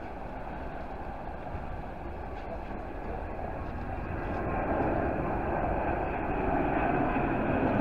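Jet engine noise of a Boeing 787-9 airliner on final approach to land, growing steadily louder from about four seconds in as it comes closer.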